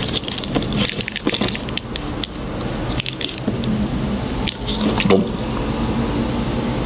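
Thin clear plastic pudding cup crinkling and crackling as it is squeezed in the hands, a run of small irregular clicks, with soft squishing as the pudding is pushed out.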